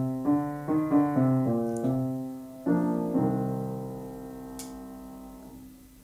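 Instrumental ending of a children's song on a piano-like keyboard: a run of chords, then a final chord about three seconds in that rings out and slowly fades away.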